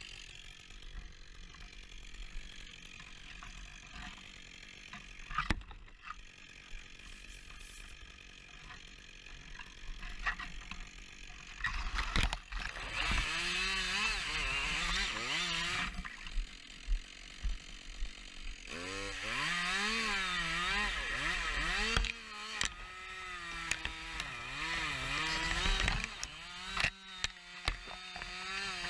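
Two-stroke chainsaw, a Husqvarna 560XP G, fairly quiet for the first dozen seconds, then revved hard for two long stretches of cutting. Its pitch dips and rises as the chain bites into the wood and clears, as when limbing and cutting up a spruce.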